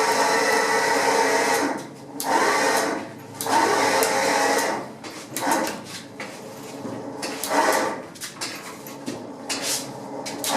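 A small electric motor running in repeated start-stop bursts: one long run of about two seconds, then several shorter runs that grow quieter.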